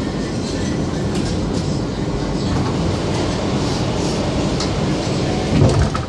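R160B subway car with Siemens propulsion running at speed, heard from inside: a steady rumble of wheels on rail with scattered clicks, and one louder knock about five and a half seconds in.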